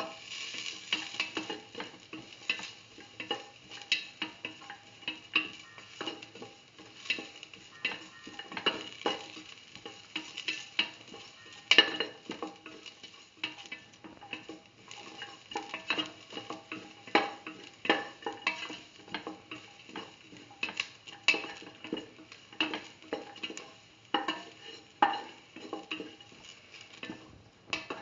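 A spatula scraping and tapping against a metal pan as sliced onions, shallots and garlic are stirred in hot oil, with a light sizzle underneath. Irregular clicks and knocks, a few a second, with one louder knock about twelve seconds in.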